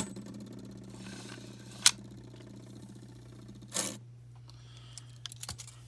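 Beyblade Burst string launcher being test-pulled: a whirring, rattling wind of its gear and string for a few seconds, with a sharp click about two seconds in and another pull near four seconds, then a few light plastic clicks.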